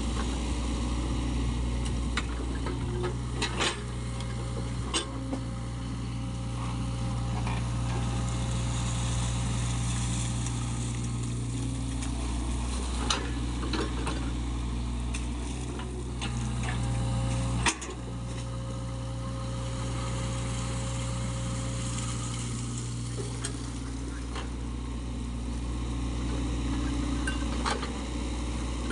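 SANY SY55C mini excavator's diesel engine running steadily under load as it digs wet mud, with a faint hydraulic whine at times and a few sharp knocks from the bucket and tracks.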